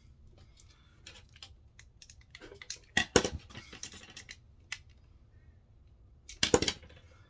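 Small RC car parts and hand tools being handled: scattered light clicks and clacks, with a louder cluster of clatter about three seconds in and another near the end.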